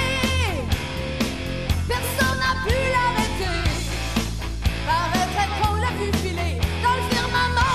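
Background music: a rock-style song with singing over a band.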